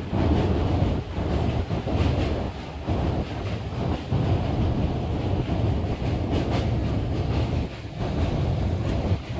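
Passenger train running on the track, heard from inside a coach: a steady low rumble and rattle of the wheels and carriage.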